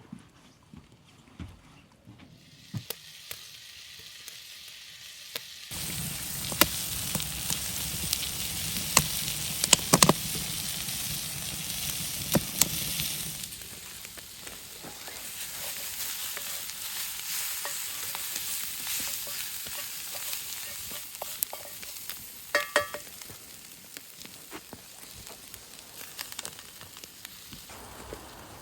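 Food sizzling in a cast iron skillet over an open fire, with sharp clicks and scrapes of a utensil stirring it. The sizzle jumps up loudly about six seconds in and eases off about halfway through.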